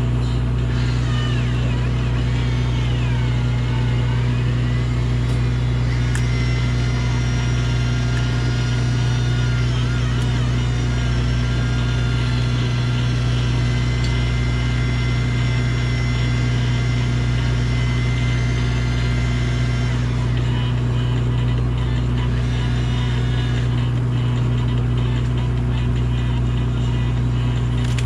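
A fishing boat's engine running steadily, a constant low drone. Fainter higher tones sit above it; they waver in the first few seconds, then hold steady until about two-thirds of the way through.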